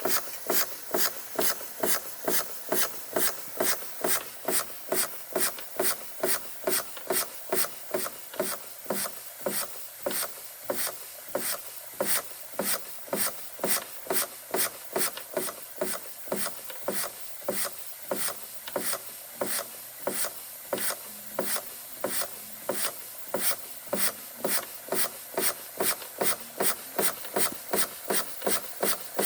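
Bing 130/383 toy steam engine running slowly, giving short rasping puffs in a steady, even rhythm of about two and a half a second.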